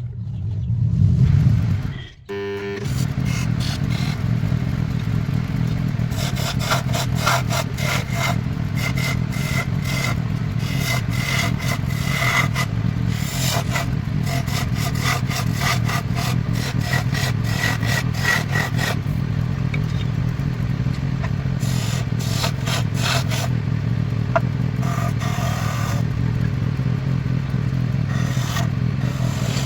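Wood lathe motor running steadily with a turning tool scraping and chattering against the spinning wood. A louder hum at the start cuts off about two seconds in before the steady running sets in.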